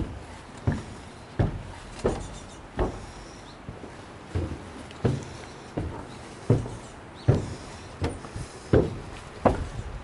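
Footsteps on wooden stairs and decking: evenly spaced hollow thuds about every three-quarters of a second, with a short pause near the middle.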